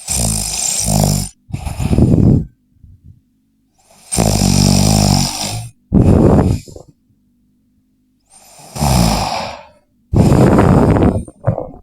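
A person snoring loudly in sleep: three long snoring breaths about four seconds apart, each in two parts with a short break between.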